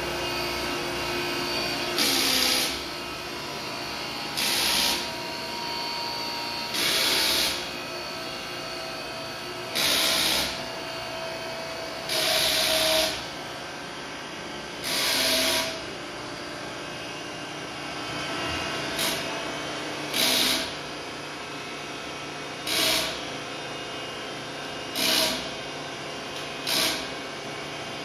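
Surface grinder grinding metal rings on a magnetic chuck. The wheel spins with a steady hum, and a short, loud grinding sound comes each time the table carries the rings under the wheel, roughly every two to three seconds.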